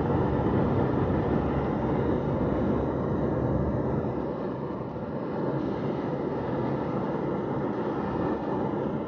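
Steady road noise of a car driving, heard from inside the cabin: a low rumble of tyres and engine that eases a little about halfway through.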